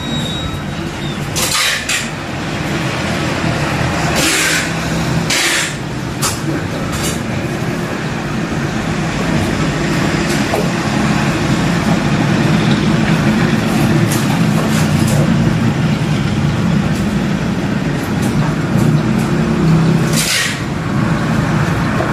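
A motor vehicle engine running steadily with a low hum, broken by several short hisses.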